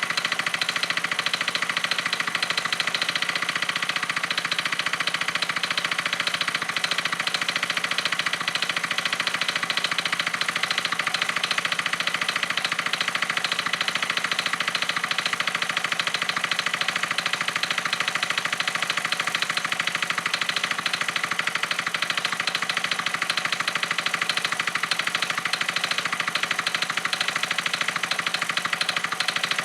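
Suzuki Vecstar 150 scooter's single-cylinder four-stroke engine running steadily at idle, with a fast, even ticking through the running. This is the abnormal engine noise whose cause the owner is asking about.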